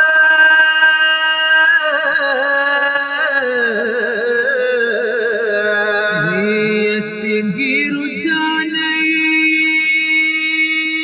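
Male voice singing a Pashto noha, a mourning chant for martyrs: one long, wavering melismatic line without clear words, sliding down in pitch a few seconds in and climbing again near the end, over a steady held tone.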